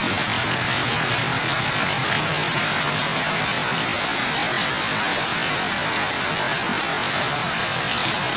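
Heavy tropical rain pouring steadily onto leaves and the ground, a dense even hiss with no letup.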